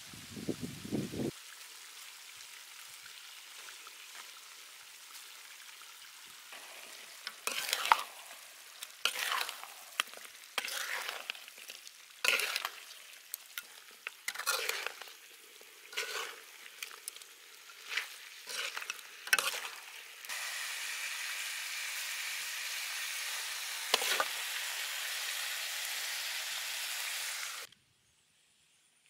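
Duck pieces sizzling in a steel wok, with a spatula scraping and stirring against the pan in irregular strokes through the middle stretch. Near the end the sizzle grows louder and steady, then cuts off suddenly.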